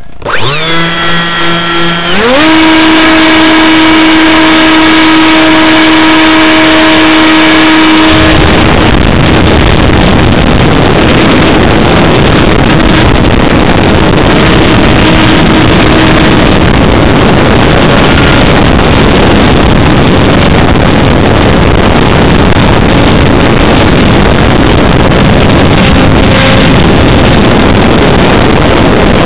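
Electric motor and propeller of a HobbyKing Bixler RC plane spinning up with a rising whine, then jumping to a higher steady whine about two seconds in. From about eight seconds in, loud rushing wind and propeller noise on the plane's onboard microphone drowns out the whine as it flies.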